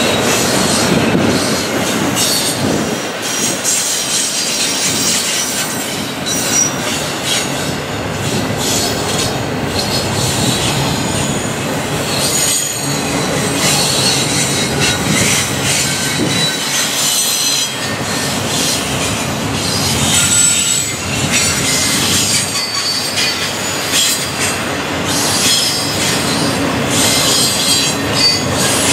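Freight train cars rolling past, with steady wheel noise, repeated clicks, and short high-pitched squeals from the wheels throughout.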